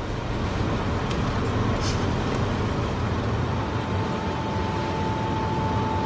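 Steady low rumble of a car driving, heard from inside the cabin. A single held tone comes in about halfway through.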